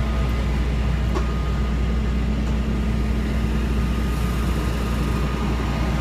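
Flatbed tow truck's engine idling with a steady low hum.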